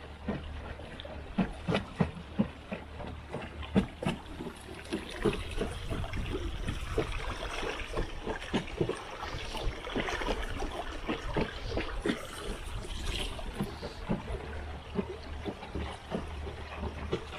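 River water lapping and slapping against the hull of a moving wooden boat, in many small irregular splashes and knocks. A steady low rumble runs underneath.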